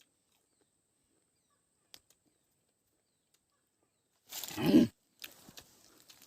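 Quiet, then about four seconds in a person's short loud vocal outburst, a groan whose pitch falls. It is followed by faint smacking, crackling mouth and handling noises.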